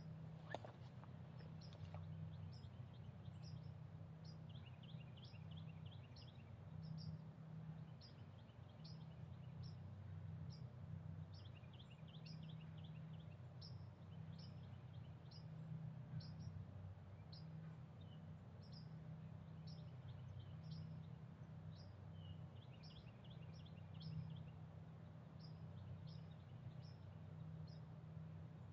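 Small birds calling: a short high chirp repeated steadily about one and a half times a second, with a brief trill every several seconds, over a faint steady low rumble. A single sharp click about half a second in.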